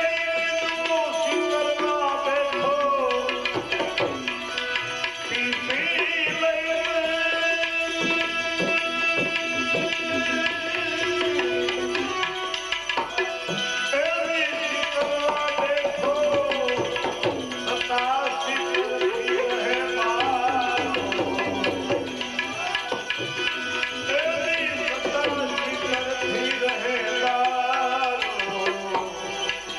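Bhajan music: tabla drumming under a sustained melodic line that glides between notes, with no words sung.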